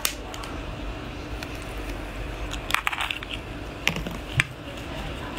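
A raw blue crab being pulled apart by gloved hands: the top shell is prised off and the body broken, giving scattered sharp cracks and clicks of shell, with a quick cluster about three seconds in.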